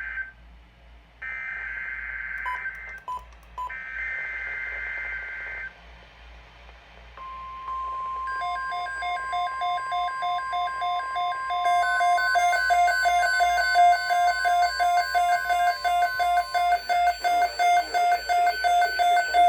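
NOAA Weather Radio alert: two buzzing SAME header data bursts, then the steady 1050 Hz weather alarm tone lasting about ten seconds. About a second after the tone starts, a receiver's electronic alarm begins beeping rapidly over it, about four beeps a second, and keeps going after the tone stops.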